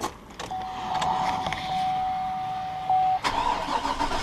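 A steady electronic beep for about three seconds, then the 2004 Chevrolet 2500HD's 6.0-litre Vortec V8 is cranked and catches right at the end.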